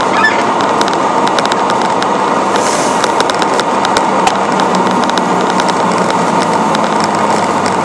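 Western Star quad tipper truck on the move: steady engine and road noise, with frequent small clicks and crackles over it.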